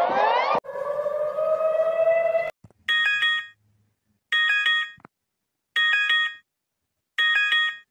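Electronic emergency alert alarm tones: a fast repeating rising sweep cuts off about half a second in, a single siren tone slowly rises for about two seconds, then four short pulsing multi-tone beeps follow, about one and a half seconds apart.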